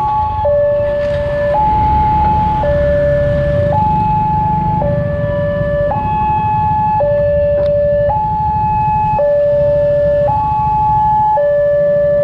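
Railway level-crossing warning alarm sounding, alternating a higher and a lower tone about once a second each, while the barrier is down for an approaching train. A low rumble runs underneath.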